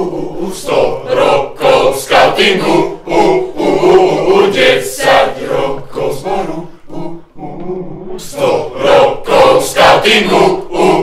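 A mixed group of young voices singing together in chorus, with sharp hand-drum beats. The singing drops away briefly about seven seconds in, then comes back strongly.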